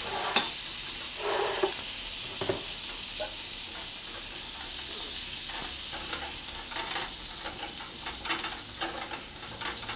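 Butter sizzling and foaming as it melts in a hot nonstick frying pan, with a steady high hiss. A wooden spoon pushes the butter around, scraping and knocking against the pan now and then.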